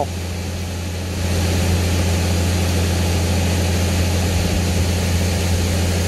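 Tractor-driven 8-inch grain auger on a 540 PTO unloading dry shelled corn: a steady low engine hum with an even rush of grain over it, a little louder from about a second in.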